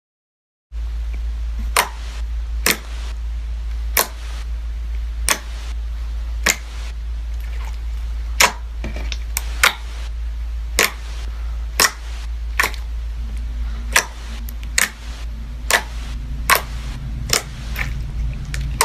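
Sharp clicks or pops, irregular, about one a second, over a steady low hum.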